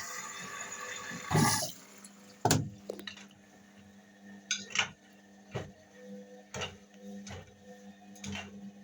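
Indesit WIUL83 washing machine on its 30°C daily wash: water rushing in, which stops about two seconds in. Then the drum turns with a steady low motor hum while the wet load sloshes and thuds about once a second.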